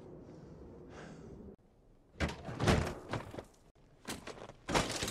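A series of irregular thuds from work at a crashed small plane's wreckage in the snow. They start about two seconds in, after faint low background noise and a moment of near silence, and are loudest near the end.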